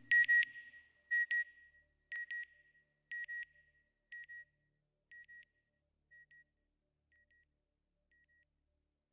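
Electronic double beep: a high two-blip signal repeated about once a second, each pair fainter than the last until it dies away after about seven seconds.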